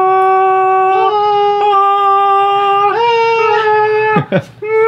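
A single voice singing long held "aah" notes as a mock-dramatic fanfare. The pitch steps up a little about a second in and again about three seconds in, then slides quickly down and breaks off near the end before one more held note begins.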